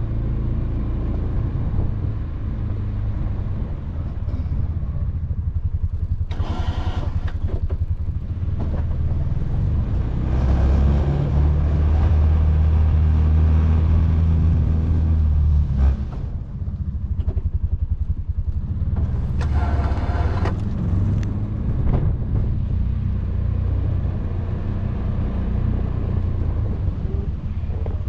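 Can-Am Defender side-by-side's engine running under load while it pushes a snow plow. It revs up and pulls harder from about ten seconds in, then eases off at about sixteen seconds. There are two short, harsher noises, one near seven seconds and one near twenty.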